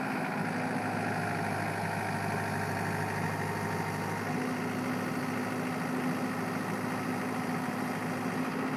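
Diesel engine of a Cat 305-5D mini excavator running steadily while the arm and bucket are moved, with a faint thin whine over the first few seconds.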